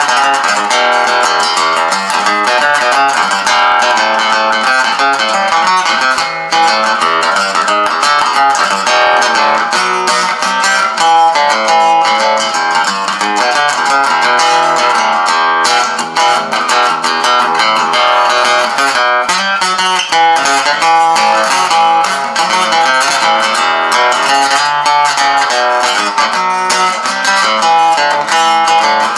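Madera acoustic guitar, newly fitted with a pickup, played through an amplifier with reverb on: a continuous run of picked notes and chords.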